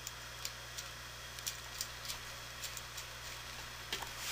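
Faint, scattered light clicks and taps of hands handling the high-velocity fan's motor housing and its mounting hardware, over a steady low hum.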